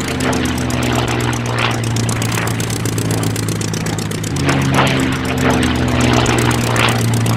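Propeller-plane engine drone of a cartoon biplane, a steady buzzing hum that shifts pitch about four seconds in, with a few brief swooshes as it flies past.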